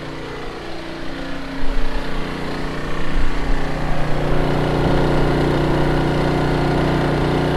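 Briggs & Stratton P3000 inverter generator running steadily in its quiet mode under load from the camper's air conditioner, TV and radio, at about a 60% draw. It grows louder about a second and a half in as it is approached, then holds a steady hum.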